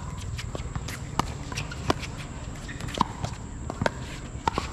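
Pickleball rally: paddles striking a hollow plastic pickleball, a string of sharp pops about a second apart, two in quick succession near the end, over a steady low rumble.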